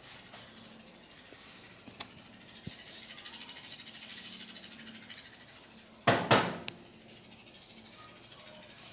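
Faint rubbing and dabbing of a sponge spreading cleaning paste over a motorcycle indicator's housing, with one brief loud noise about six seconds in.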